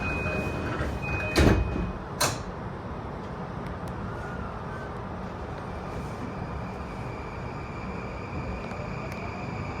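Door-closing chime of a JR East E235-1000 series train, then its sliding doors shut with two sharp thuds, about a second and a half in and again a second later. Afterwards a steady low rumble, with a faint high whine from the full-SiC VVVF inverter coming in about six seconds in as the train moves off.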